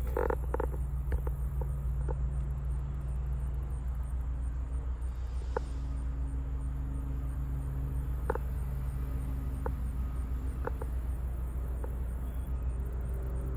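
A steady low hum with a few faint, sharp clicks scattered through it.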